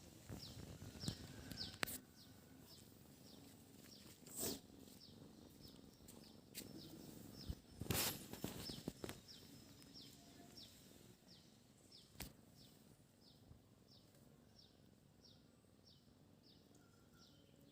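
A bird repeating a short, high, falling chirp about twice a second, faint against background noise. A few sharp knocks sound among the chirps, the loudest about eight seconds in.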